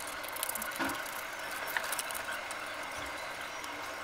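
Scissors snipping through white chart paper in a run of small, irregular snips, with the paper rustling as it is turned.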